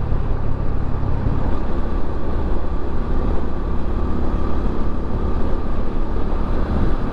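Motorcycle cruising at highway speed: the engine runs steadily under loud wind rush on the helmet-mounted microphone.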